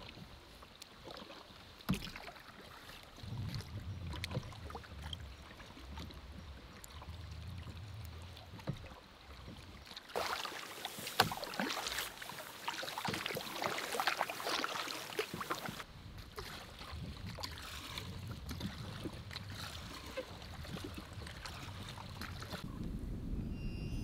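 Canoe being paddled: paddle strokes pulling through the water with splashing and drips, busiest in the middle stretch, with scattered knocks. Wind buffets the microphone with a low rumble at times.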